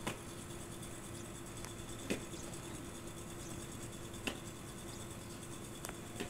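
Quiet open-air ambience with a faint steady hum, broken by four short, sharp knocks about two seconds apart.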